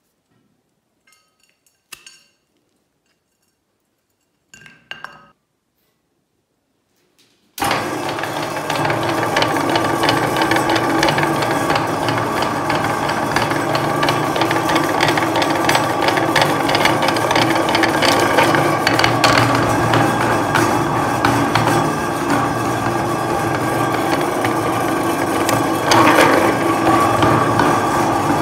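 Near silence with a few small handling clicks. Then, about a third of the way in, a meat grinder's motor starts abruptly and runs with a steady hum and a grinding rattle as it minces bar soap through the cutting plate. The rattle gets a little louder near the end.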